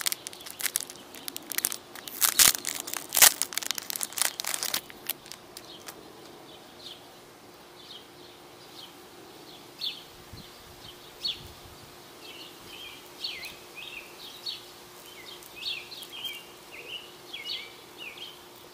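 Clear plastic lure packet crinkling as it is handled and opened, for about the first five seconds. Then the crinkling stops and birds chirp in short scattered calls.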